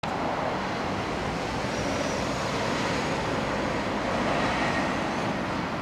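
Yellow JR West electric train approaching on the line: a steady rumble of its running that grows a little louder after about four seconds, with faint brief squeals.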